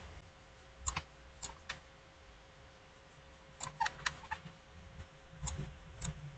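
Scattered clicks of a computer keyboard and mouse, a few at a time with short gaps between, over faint room hiss and a low steady hum.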